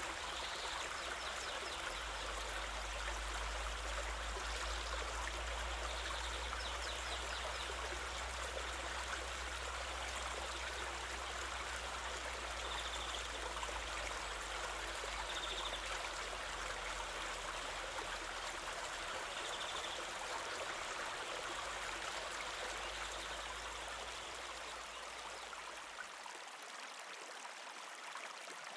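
River water flowing over stones with a steady rushing and babbling, with a low rumble underneath that fades out near the end.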